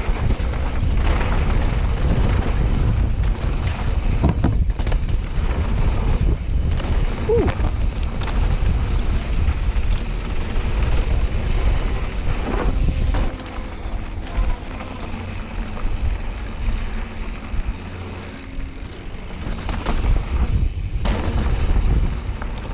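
Wind buffeting an action-camera microphone over the rumble and rattle of a mountain bike, a 2021 Specialized Stumpjumper, riding a dirt trail, with irregular clicks and knocks from the tyres and frame. The noise eases off about halfway through.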